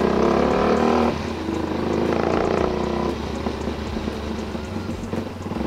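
Sport motorcycle engine running as it rolls slowly, heard from the rider's helmet. It is louder for about the first second, then eases off and runs on quieter.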